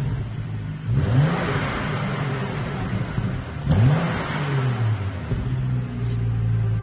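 BMW 335i's turbocharged straight-six through its stock exhaust, free-revved twice from idle, about a second in and again near the four-second mark, each rev rising and dropping back, then idling steadily.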